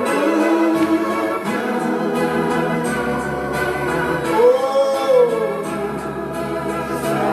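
Church worship music: an electronic organ holding sustained chords while voices sing a hymn, one voice swelling up and falling back about four and a half seconds in.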